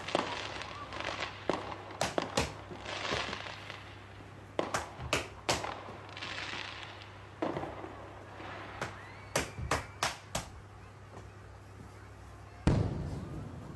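A cloth being shaken out and snapped: irregular clusters of sharp cracks with a few swishing rushes between them, and a heavier thump near the end. A low steady hum runs underneath.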